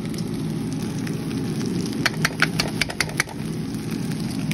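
A steady low hum, and between two and three seconds in a quick run of about eight sharp clicks as a spatula stirs rice and shrimp and knocks against the metal pan.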